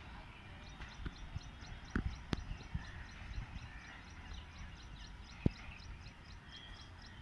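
Low rumble of a departing train with a few sharp knocks, the loudest about five and a half seconds in, and a faint, rapid, high-pitched chirping throughout.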